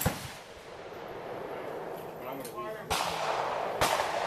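Gunshots on a firing range: a shot right at the start, then two more about three and four seconds in, each a sharp crack with a short ringing tail.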